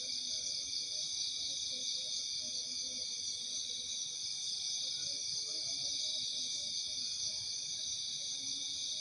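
Night insect chorus of crickets: a dense, steady, high-pitched trilling that never lets up, with faint lower chirping underneath.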